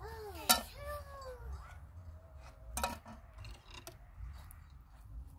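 A cat meowing twice, in pitched calls that rise and fall, in the first couple of seconds. A sharp knock comes about half a second in and another about three seconds in, over a low rumble.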